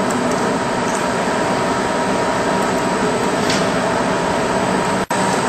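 Steady running noise of machine-shop machinery: a constant hiss and hum with a few faint steady tones. It drops out for an instant about five seconds in.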